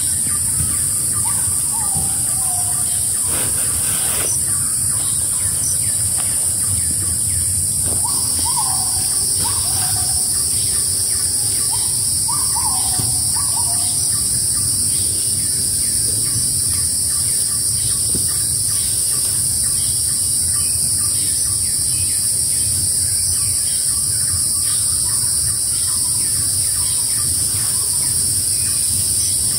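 Forest ambience: a loud, steady high-pitched drone of insects, with a second, slightly lower insect drone joining about eight seconds in. A bird calls with short runs of falling whistled notes near the start, about eight seconds in and again about twelve seconds in.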